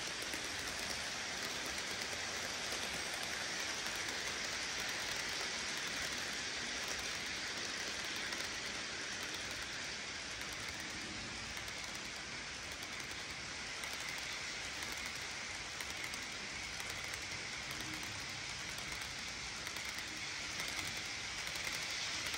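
HO scale model freight cars rolling past on sectional track: the steady rolling noise of many small metal wheels on the rails.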